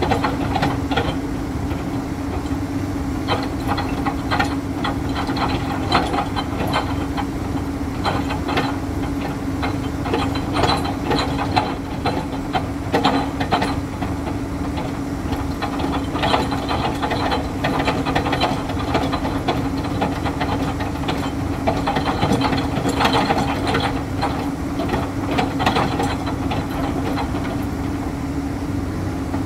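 Komatsu PC210 hydraulic excavator's diesel engine running steadily under load with a constant hum, over irregular metallic clanks and rattles as its bucket presses a steel sheet pile down into the wet ground.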